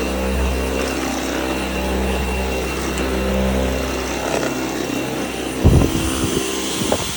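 Dyson Outsize cordless stick vacuum running, a steady motor whine over a low rumble. About six seconds in the rumble drops away with a sharp thump, and a smaller knock follows near the end.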